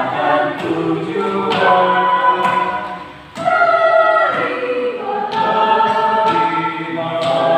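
A choir rehearsing, several voices singing unaccompanied in harmony. The singing fades briefly about three seconds in, then comes back in.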